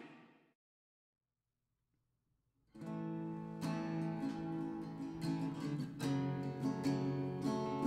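Background music: a piece ends right at the start, followed by about two and a half seconds of silence, then a new piece of music begins.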